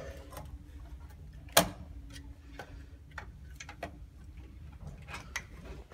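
Scattered small clicks and taps of electronic door-lock hardware and its wiring being handled against a door, with one sharper, louder click about a second and a half in.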